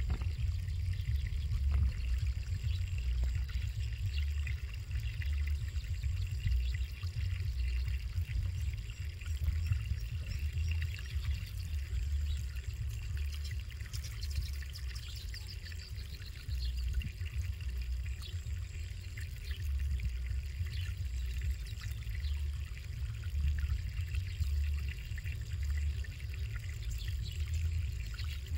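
Uneven low rumble of wind buffeting the microphone, with a faint hiss and scattered faint high chirps.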